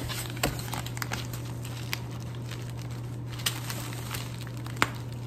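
Crinkling and rustling of plant shipping packaging being handled, with scattered light taps and clicks, over a steady low hum.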